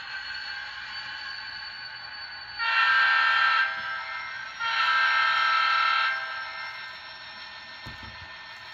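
HO-scale model diesel locomotive's sound decoder playing a steady engine sound, then two diesel horn blasts about a second and a half long each, a second apart, as the locomotive moves off. A soft knock follows near the end.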